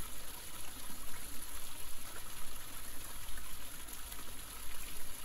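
Running water trickling steadily, an even, unbroken wash of water noise.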